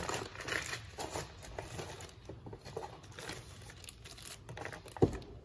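Plastic packets of brake caliper seal kits crinkling and rustling as they are handled, with one sharp knock on the bench about five seconds in.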